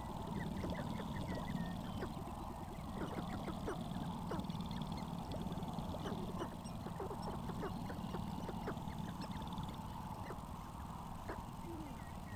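Sharp-tailed grouse calling on a lek: many short, overlapping clucks and cackles, with a faint fast high rattle at times.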